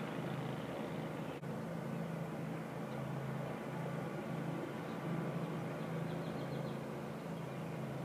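Steady low engine rumble, with a few faint quick chirps about six seconds in.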